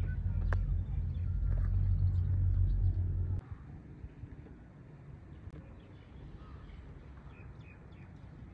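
Wind buffeting the microphone during a chairlift ride, a heavy low rumble that cuts off abruptly a little over three seconds in. After that comes quiet outdoor ambience with a few faint high chirps.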